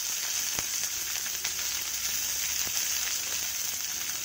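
Hot oil sizzling steadily in a kadai as a tempering of mustard seeds, urad dal, sliced green chillies and curry leaves fries, with an occasional small pop.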